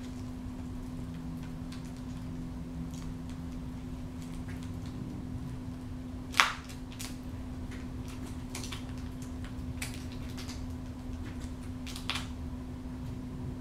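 Peregrine falcon tearing at and eating quail meat: scattered small clicks and ticks as it works the meat, with one sharp, louder click about halfway through, over a steady low hum.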